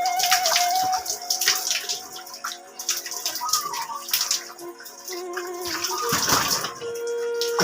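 Water splashing and pouring in irregular bursts as a person bathes, with a bigger splash about six seconds in.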